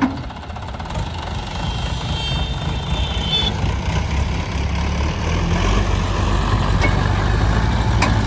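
Heavy diesel engine of earthmoving machinery running under load, getting louder after about five seconds. There is a sharp knock at the very start and a brief high whine a couple of seconds in.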